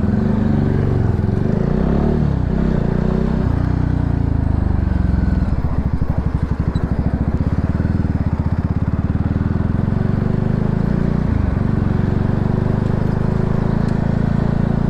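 Voge 300 Rally motorcycle's single-cylinder engine pulling away, its pitch rising and dropping through gear changes over the first few seconds, then running steadily at cruising speed, with a brief dip about eleven seconds in.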